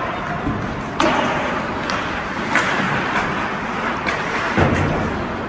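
Ice hockey play on a rink: a steady wash of skating and rink noise, broken by three sharp cracks of sticks and puck, about a second in, halfway through and near the end, the last with a low thud like the puck or a player hitting the boards.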